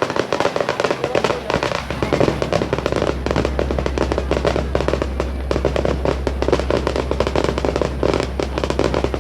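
Fireworks display going off in a dense, continuous crackle of rapid bangs, many a second, with music playing along.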